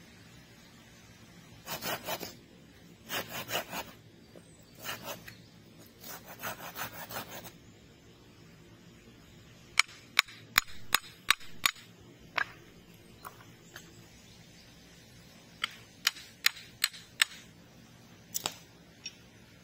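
Wood being worked by hand: four rasping strokes of a blade or saw across wood, then a run of sharp wooden clicks and knocks, quick at first, then sparser and louder near the end.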